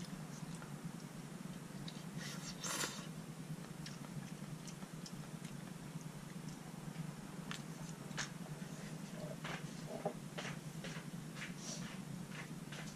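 Eating sounds from a bowl of malatang: chopsticks and a spoon clicking against a ceramic bowl, with chewing, over a steady low hum. The clicks come scattered, then bunch together in the second half.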